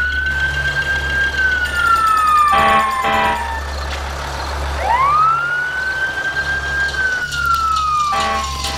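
Fire engine siren wailing in two slow cycles, each rising quickly, holding, then sliding slowly down. Near the end of each fall there is a short pitched blast, and a steady low vehicle rumble runs underneath.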